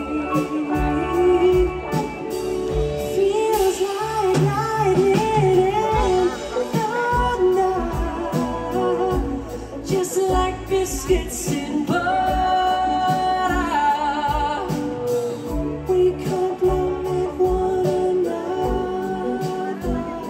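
Live band performance through the PA, heard from the audience: a lead vocal singing over acoustic guitars, cello, drums and keyboards, with a steady beat.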